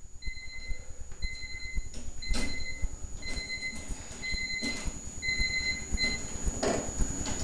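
Electronic workout timer beeping: a run of short, high, identical beeps about once a second, the end-of-round signal, stopping about six seconds in. A few dull knocks sound in between.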